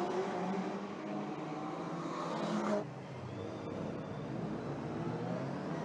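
Engines of pre-1965 GT racing cars running hard on track, rising to a peak just before three seconds in, then dropping abruptly to a lower, steadier sound.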